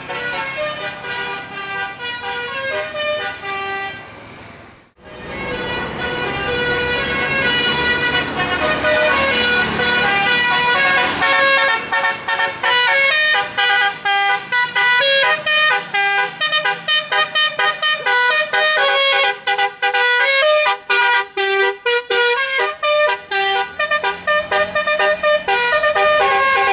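Basuri-type telolet horn playing a tune as a string of horn notes stepping up and down in pitch. It breaks off briefly about five seconds in, then plays on, the notes coming quicker and choppier in the second half.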